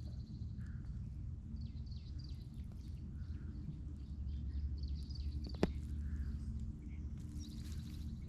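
Small birds chirping over and over, short high calls that drop in pitch, over a steady low rumble, with one sharp click about five and a half seconds in.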